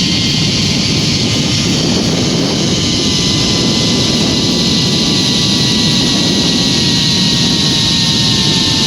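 Zip line trolley pulleys running fast along the steel cable, a steady high whine that slowly falls in pitch, with wind rushing over the helmet camera's microphone.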